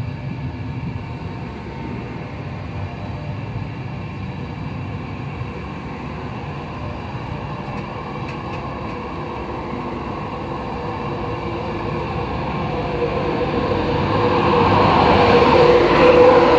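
InterCity 225 electric train's Mark 4 coaches rolling past the platform with a steady low rumble. It grows louder over the last few seconds, with a steady whine.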